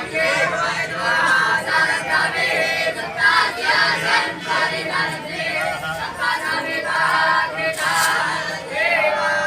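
A group of many voices singing together, men's and women's pitches overlapping.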